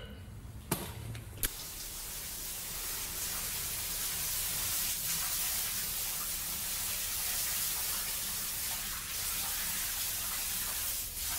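Two sharp knocks, then a shower running steadily, its water spray a constant hiss.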